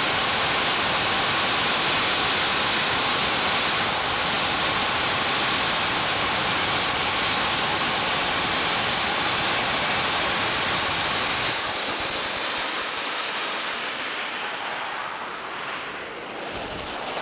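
Small jet engine running steadily, a loud, even rush of exhaust. About twelve seconds in it grows quieter and duller as the hiss fades.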